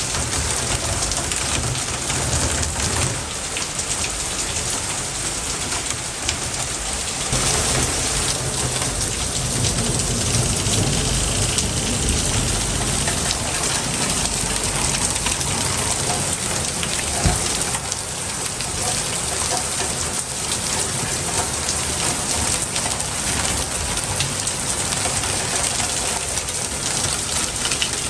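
Steady hissing noise like heavy rain, a little louder from about seven seconds in.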